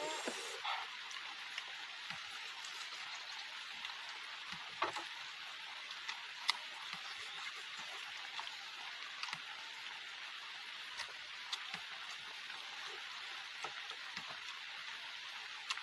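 A person eating with their hand: chewing and mouth clicks, sharp and scattered, loudest about five and six and a half seconds in, over a steady hiss.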